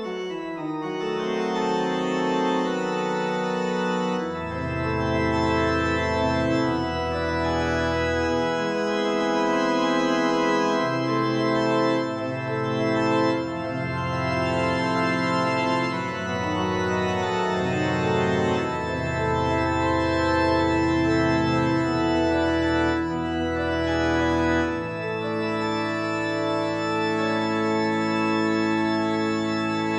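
Classical-style organ music: sustained, held chords over deep bass notes that come in about four seconds in and drop out and return several times.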